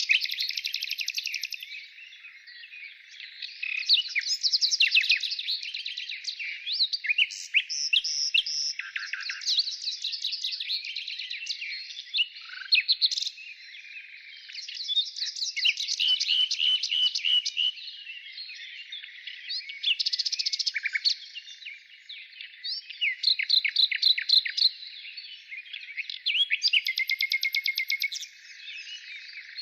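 Birds chirping and twittering in a dense chorus, many quick notes and trills overlapping, swelling and fading every few seconds.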